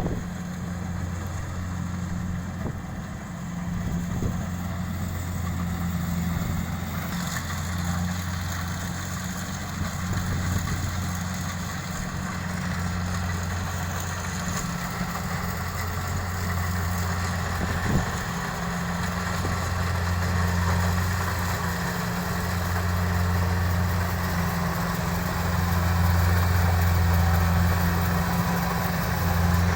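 Kubota DC-70 combine harvester's diesel engine running steadily with a low hum, growing louder toward the end. A brief sharp knock sounds about four seconds in and another past the middle.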